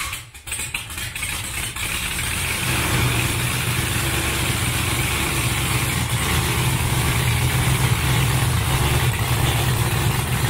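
LS-swapped Chevy S-10's V8, just started, running through short open zoomie headers that exit through the hood. It runs unevenly for the first couple of seconds, then settles into a steady idle.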